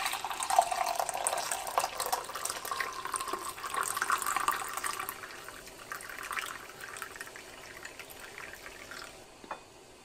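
Hot coffee poured in a steady stream from a stainless steel thermal carafe into a ceramic mug, the splashing fading over the last few seconds, with a short knock near the end.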